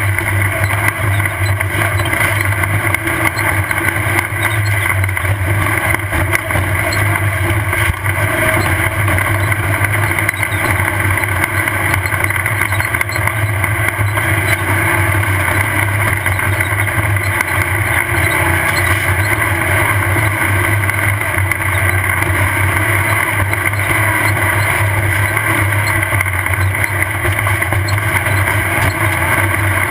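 Off-road race car's engine running hard and steadily under load, with the chassis jolting and rattling over rough desert terrain, heard from an onboard camera.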